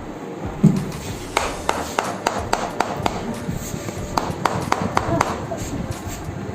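Rapid percussive massage taps on a patient's body, sharp knocks coming about three to four a second in short runs. A single duller thump comes just before them.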